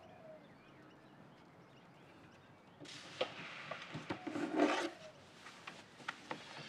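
Faint room tone, then from about three seconds in, rustling, a few light knocks and a short scrape, loudest just before five seconds, as a man gets up from a table and moves off.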